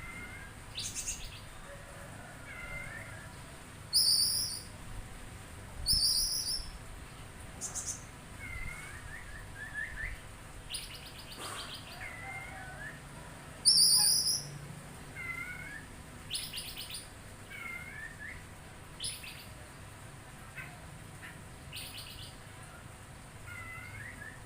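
Oriental magpie-robin (kacer) calling: three loud, sharp, high chirps a few seconds apart, rapid trilled rattles, and softer curving whistled notes repeating every second or two.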